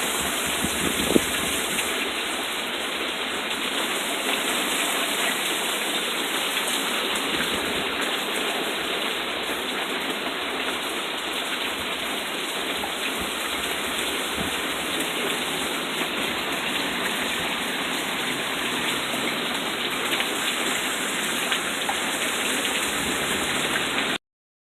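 Heavy rain falling steadily, a dense even hiss with one sharp tap about a second in; it cuts off suddenly near the end.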